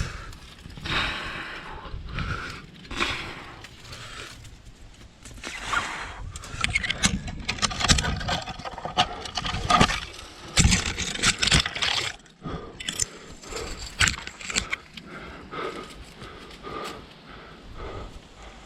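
Irregular scraping and knocking of a climber's body and gear against the rock while working up a chimney, loudest and busiest in the middle.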